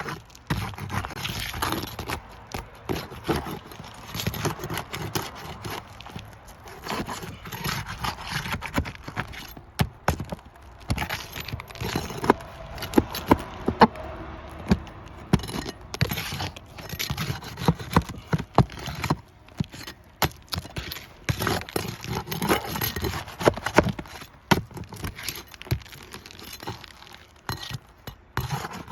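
Irregular clattering and scraping of hard objects being handled, with many sharp clicks and knocks at uneven intervals.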